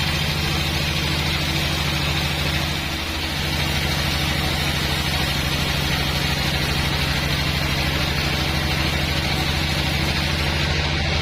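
Bandsaw sawmill running steadily: an engine drone with a hiss above it, easing briefly about three seconds in.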